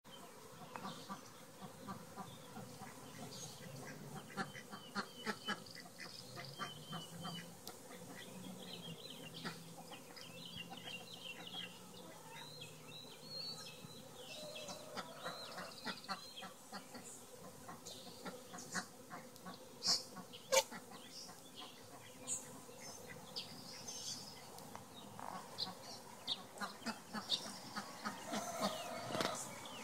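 Honeybees buzzing as they fly around the entrance of a newly installed top bar hive on orientation flights, with birds calling in the background.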